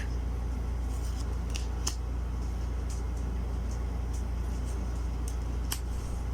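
Steady low hum with a few faint, short clicks and ticks as large tarot cards are handled and flipped.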